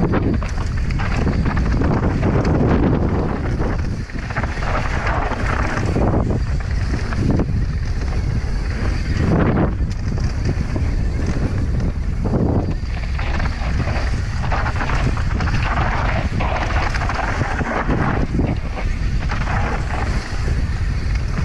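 Wind rushing and buffeting over the microphone of a rider-mounted camera on a fast mountain-bike descent, with irregular rattles and knocks of the bike running over a dry dirt and rock trail.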